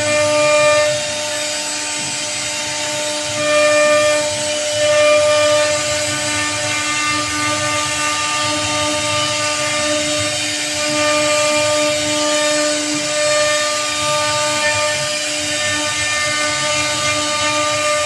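CNC router spindle running with a steady whine while its small carving bit cuts a relief pattern into a teak wood door panel, the bit rasping through the wood.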